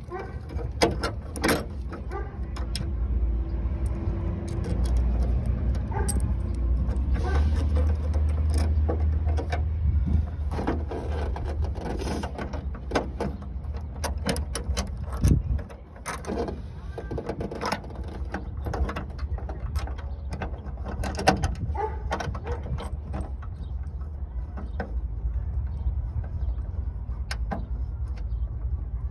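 Scattered metal clicks and clinks of a folding Allen wrench, hood hinge bolts and washers being handled and tightened while fitting hood-riser spacers, over a low rumble that is heaviest in the first half.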